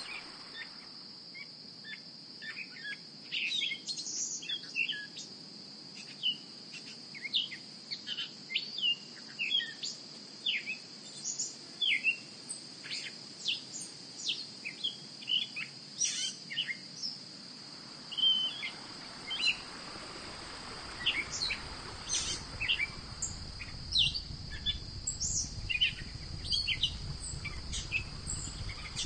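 Evening nature ambience: many short, quick bird chirps over a steady high insect trill like crickets. About two-thirds of the way through, a low rushing noise joins in underneath.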